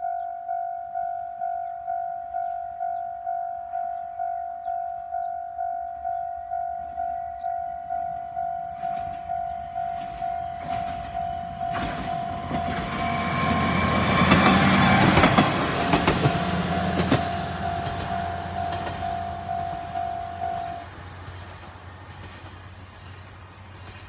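Japanese level-crossing alarm ringing its repeated two-tone chime about twice a second while a Tenryū Hamanako Railway diesel railcar passes. The train builds from about 12 seconds in, is loudest around 15 seconds with wheels clacking over the rail joints, and fades away. The alarm stops about 21 seconds in as the crossing clears.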